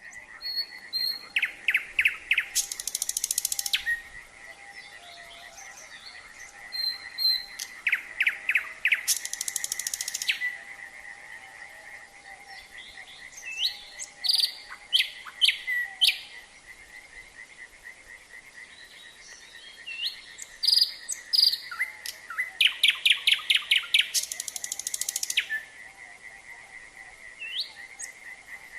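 Nightingale singing in four phrases of a few seconds each, with pauses between: rapid runs of repeated notes, whistles and high buzzy trills. Under it, frogs call in a steady, continuous pulsing chorus.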